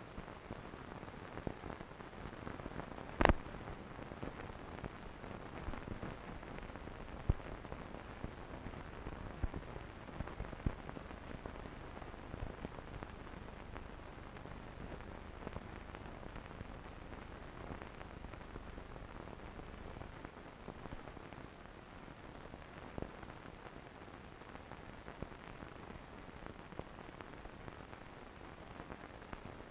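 Steady hiss with scattered random clicks and pops, one sharper crack about three seconds in: the surface noise of an old film transfer, with no train sound to be heard.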